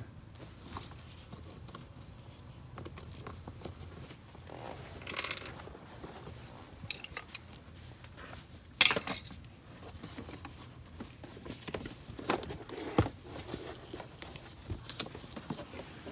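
Car floor mats being pulled out of the footwell: scattered rustles, scrapes and light knocks, with one louder scraping rustle about nine seconds in.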